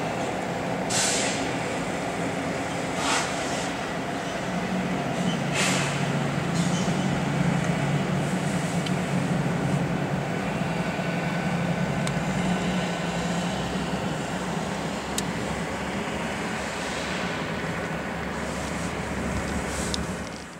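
Three GE diesel-electric locomotives running light, coupled together, passing at close range with a steady engine drone. A few brief high-pitched sounds come in the first six seconds, and the sound fades out at the end.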